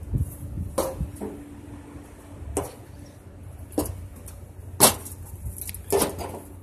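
Footsteps on aluminium stadium bleacher benches: about five separate knocks, roughly one a second.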